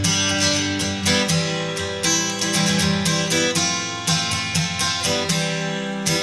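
Background music played on acoustic guitar, plucked and strummed, with several notes a second.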